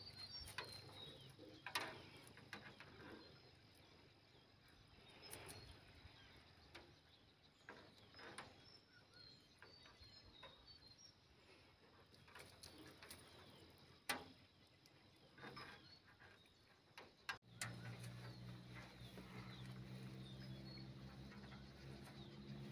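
Quiet handling of a gill net: scattered soft taps and clicks as shrimp and small fish are picked from the mesh and dropped into a wooden boat, with faint bird chirps. About two-thirds of the way through, the sound cuts to a steady low hum.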